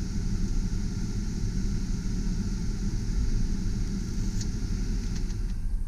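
The truck's 6.0-liter V8 idling, heard from inside the cab, under the steady rush of the air-conditioning blower. About five and a half seconds in the blower is turned down and the airy hiss drops away, with a few light clicks from the climate controls.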